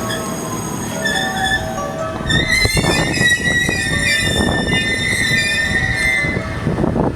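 Electric commuter train braking as it pulls into a station: wheels and brakes squeal in high ringing tones from about two seconds in, fading out shortly before the end, over the train's rumble and knocks.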